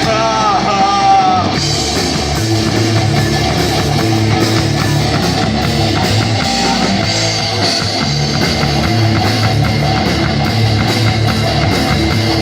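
Heavy rock music with distorted electric guitars and drums. A held sung note ends about a second and a half in, and an instrumental passage with a steady beat follows.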